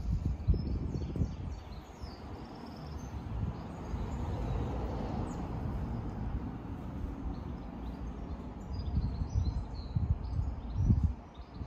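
Outdoor ambience: small birds chirping and twittering again and again, over a low rumble that swells and fades, loudest near the start and near the end.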